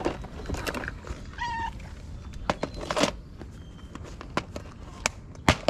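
A cat gives one short meow about a second and a half in, amid scattered clicks and rustling handling noises.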